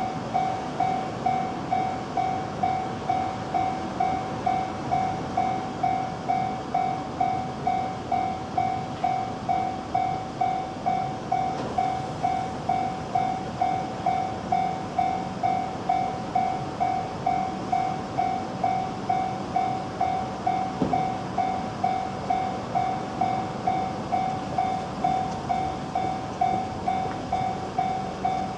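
Japanese railway level-crossing warning bell ringing steadily at a little under two rings a second, over a continuous rushing rail noise.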